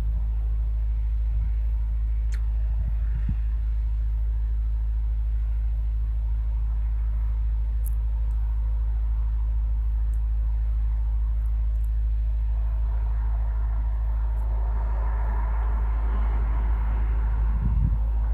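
Steady low rumble of an idling vehicle engine. A wider wash of noise swells for a few seconds near the end, then fades.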